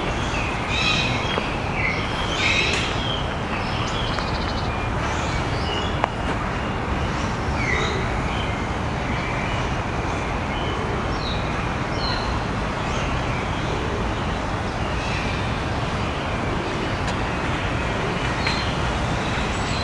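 City park ambience: a steady hum of distant traffic with small birds chirping now and then, more often in the first few seconds.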